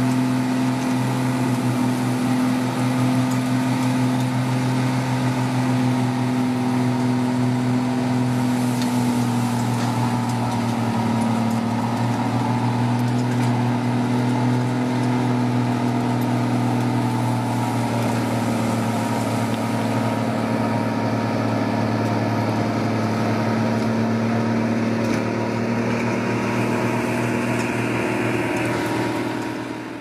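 Diesel engine of a Komatsu D155W underwater bulldozer running steadily, its pitch sagging slightly about a third of the way through and rising again later.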